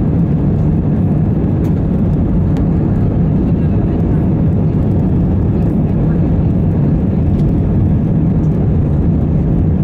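Steady rumble inside the passenger cabin of an Airbus A320 rolling on the ground with its engines running.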